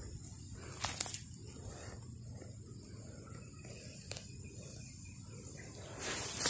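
A steady high-pitched insect drone, over low rustling with a few light snaps in dry leaf litter and rotten wood.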